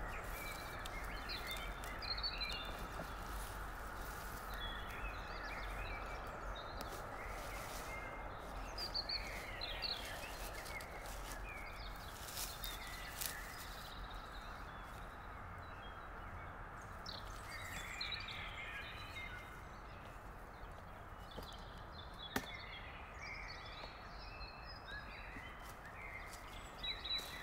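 Dry grass and fallen leaves rustling and crackling in short, scattered bursts as hands dig around porcini mushrooms and a person moves through the leaf litter, over a steady outdoor hiss.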